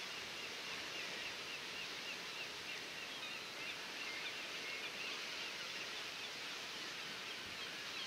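A bird repeating a short high chirp about three times a second over a steady outdoor background hiss; the chirps become sparser and more irregular about five seconds in.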